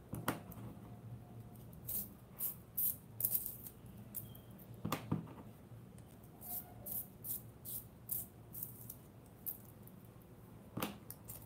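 Colored pencils being sharpened in a small handheld long-point sharpener: short, irregular rasping scrapes as the blade shaves the wood and lead. A few sharper knocks come near the start, about five seconds in and near the end.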